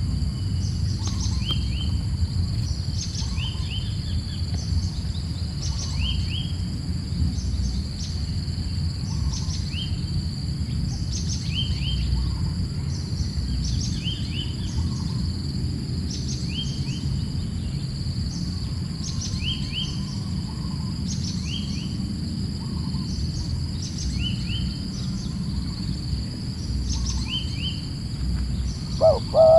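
Short high bird calls, some falling in pitch, repeating about every second and a half over a steady high insect drone and a low rumble. Near the end comes a lower, louder call that sounds like a dove cooing.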